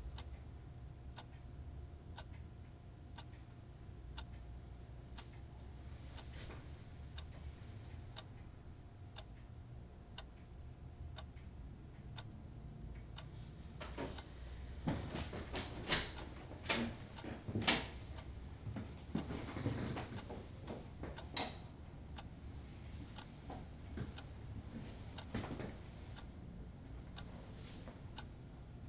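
Mechanical twin-bell alarm clock ticking steadily over a low hum. About halfway through, louder irregular knocks and rustles come in for several seconds.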